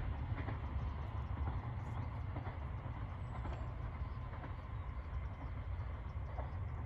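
FEVE narrow-gauge electric railcar running, a steady low rumble with scattered light clicks.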